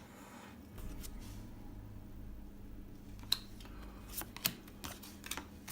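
Faint rustling with a few light, sharp clicks, several spread through the second half, as paper trading cards are handled and flipped through.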